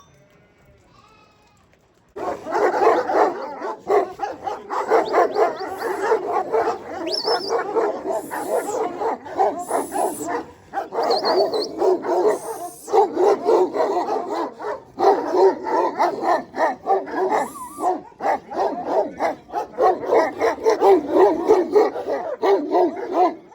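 Shepherds' sheepdogs barking together in a dense, continuous, overlapping chorus that starts suddenly about two seconds in.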